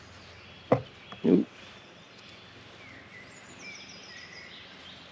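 Birds singing in woodland: scattered high chirps and a quick run of high, falling notes about three and a half seconds in. A sharp click and then a short dull thud, close together about a second in, are the loudest sounds.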